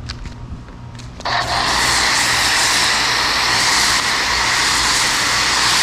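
Active 2.0 pressure washer feeding an Active foam cannon, spraying foam: a loud, steady hiss of spray that starts abruptly about a second in, over a low hum.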